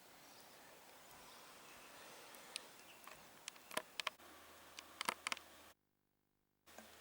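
Faint open-air background with a scatter of short sharp clicks in the middle, then about a second of dead silence.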